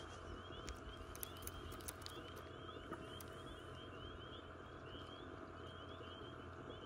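Faint chorus of frogs calling: high, short rising peeps repeating several times a second, over a low steady hum, with a few light clicks in the first couple of seconds.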